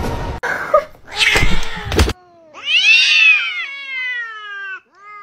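A cat gives one long, drawn-out yowl that rises and then falls in pitch, followed near the end by the start of a second yowl. This is the sound of two cats facing off in a standoff. A few short noisy bursts come before it.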